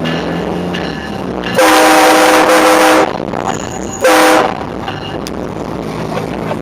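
Aftermarket train horn on a 2006 Scion xB sounding two blasts of a steady multi-tone chord: a long one of about a second and a half, then a short one about a second later.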